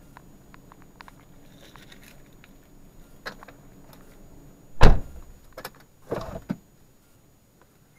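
Several knocks and thumps inside a car's cabin over a faint steady hum: one sharp, loud thump about five seconds in, a lighter knock just after, and a pair of duller thumps about a second later.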